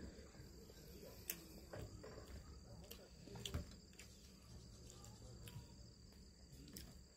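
Faint chewing and mouth sounds from eating grilled chicken and rice by hand, with several soft clicks spread through, over a steady high-pitched whine in the background.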